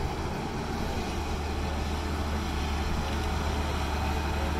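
Diesel engine of a Hyundai 210 crawler excavator running with a steady low drone as the machine swings around from the tipper truck toward the dirt pile.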